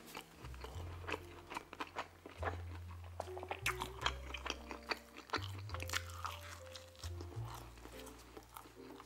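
Close-miked chewing of a mouthful of stuffed-crust pizza crust, with many small wet mouth clicks and crunches. Quiet background music plays under it, its low bass notes changing every second or so.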